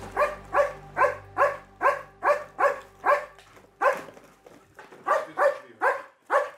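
German shepherd search-and-rescue dog barking over and over at about two and a half barks a second, with one short pause. This is its bark alert that it has found the strongest scent of a live person in the rubble.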